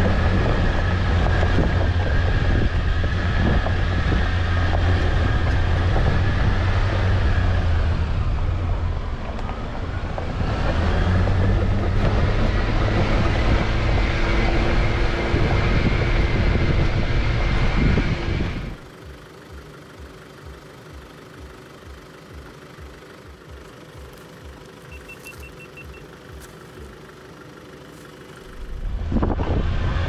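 4WD engine and road noise heard from inside the cab while driving a dirt track, with the engine note climbing steadily in pitch as it pulls. About two-thirds of the way through, the sound drops suddenly to a much quieter low hum with soft, even pulsing, then comes back loud just before the end.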